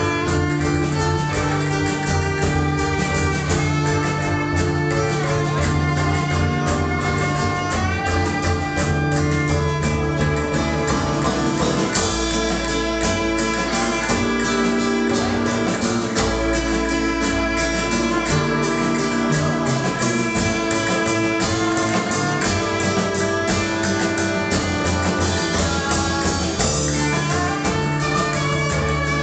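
Live acoustic guitar, violin and upright double bass playing together, the violin carrying a sustained melody over guitar accompaniment and low bass notes.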